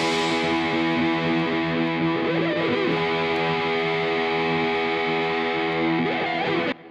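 Background music: sustained distorted electric guitar chords that cut off abruptly near the end, leaving a short fading tail.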